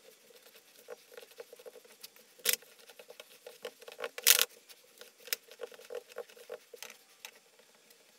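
Breadcrumbs being sprinkled and pressed by hand onto an egg-dipped Murray cod fillet on a plate: a run of small crackly ticks and pats, with two louder pats about two and a half and four seconds in.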